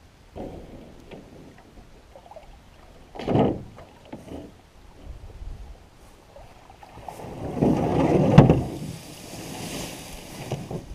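Canoe paddle strokes and water sloshing as a canoe passes right by, with a sharp splash about three seconds in and a longer, louder rush of water and rubbing around eight seconds as the hull slides past close up.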